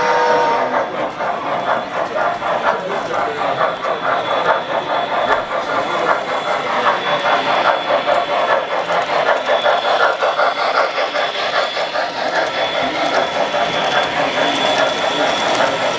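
Model train running on a layout, with a fast, even clicking rhythm over the track. A held horn-like tone stops about half a second in.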